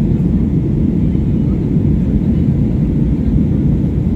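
Steady low rumble of an airliner climbing out after takeoff, with no changes or separate events.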